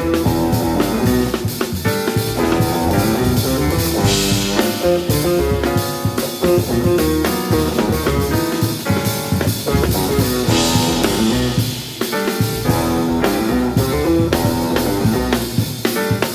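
Live jazz quartet playing: electric guitar, grand piano, double bass and drum kit together, with cymbal crashes about four seconds in and again around ten seconds in.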